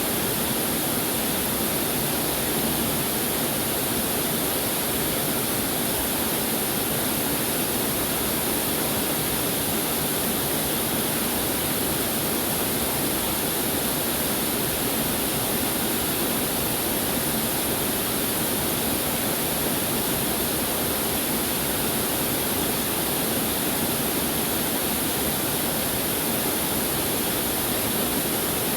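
Waterfall pouring steadily, a constant rush of falling water with no breaks.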